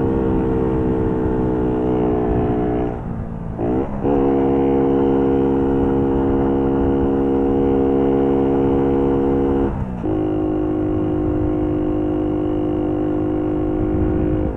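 Four-stroke moped engine running hard at steady high revs under load. The revs dip briefly and climb back twice, about three seconds in and again near ten seconds.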